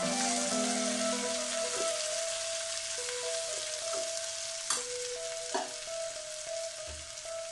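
Chickpeas and grated coconut sizzling and being stirred in a hot kadai with coconut oil, a steady frying hiss, with two sharp clicks in the second half.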